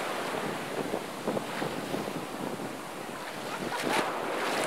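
Rough ocean surf washing onto the beach, with strong wind buffeting the microphone.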